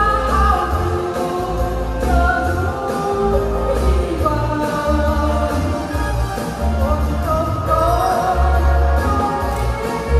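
A solo singer performing a song live over backing music with a heavy, pulsing bass beat, the voice holding and gliding between long notes.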